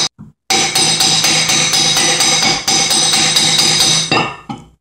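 A quick run of hammer blows on a steel rod driving the press-fit end cap out of a cast iron Wilton 1780 bench vise, with the metal ringing between strikes. There is a short break just after the start, and the blows fade out near the end as the cap comes free.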